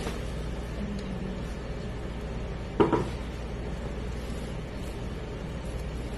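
Cookware set down on a hard surface with one sharp double knock, a little under three seconds in, over a steady low hum.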